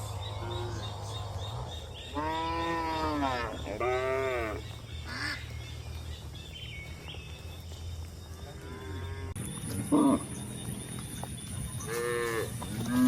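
Cows mooing: two long calls close together about two and four seconds in, fainter calls later, and another loud one near the end, each rising then falling in pitch. A steady low hum runs underneath.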